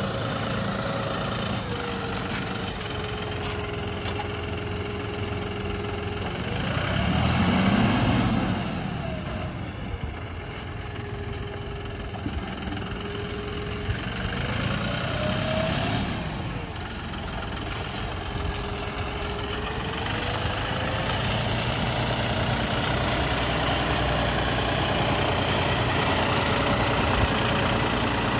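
John Deere 5405's three-cylinder common-rail diesel engine running under load while the tractor drags a cultivator through wet mud. Its pitch drops and climbs again several times as the engine speed changes, loudest about seven or eight seconds in, then it runs steady near the end.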